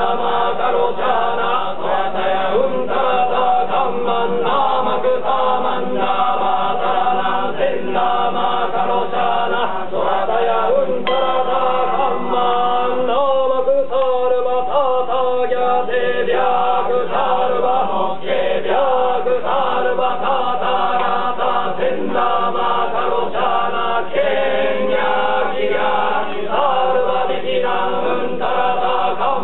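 Group of Shugendō yamabushi chanting a Buddhist sutra in unison, a steady unbroken drone of men's voices.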